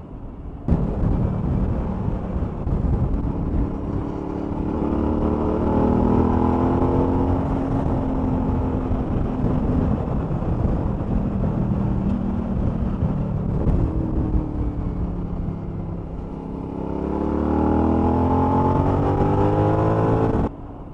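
Suzuki V-Strom 1000's 1037 cc V-twin engine under way, heard from the rider's camera with wind and road noise. It rises in pitch as the bike accelerates, eases off near the middle, then pulls up again before dropping away abruptly near the end.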